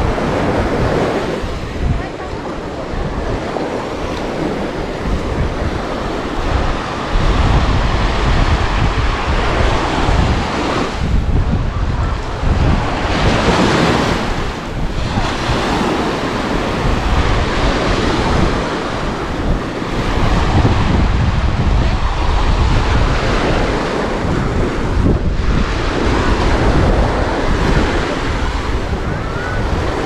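Surf breaking and washing up on a sandy beach in repeated surges, with the biggest surge about halfway through. Strong wind buffets the microphone with a heavy rumble.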